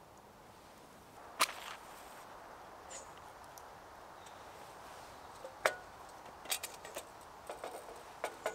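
A Feuerhand hurricane lantern being lit. A match is struck about a second and a half in, and later comes a sharp metal click, then a string of lighter clicks near the end as the lantern's wire lever and glass globe are handled.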